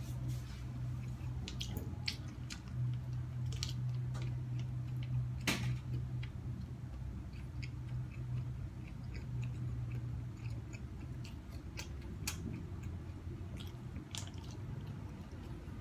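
A person chewing and biting a packaged tofu snack, with scattered small clicks. Underneath is a steady low hum that weakens about two-thirds of the way through.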